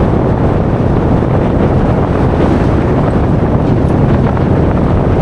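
Loud, steady wind rushing over the microphone together with the rumble of an off-road 4x4 driving.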